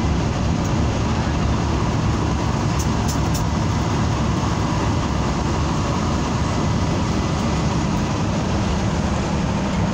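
Steady engine, tyre and wind noise inside a Yutong coach moving at highway speed, with another coach running close alongside.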